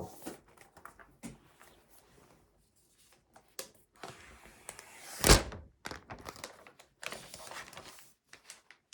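MacBook Pro box and its packaging being handled and opened: scattered scraping and rustling, with one loud thunk about five seconds in.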